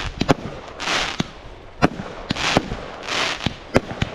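Fireworks going off: a string of sharp bangs, about two a second, mixed with repeated hissing bursts.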